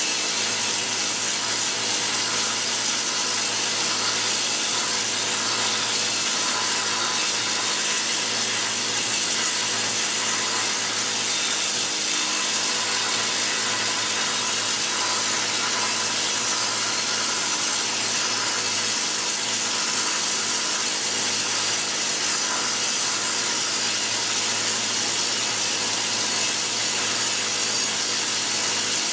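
Air-powered planishing hammer running continuously, its strokes on sheet steel coming so fast that they merge into one steady rattling buzz as the steel is stretched into shape.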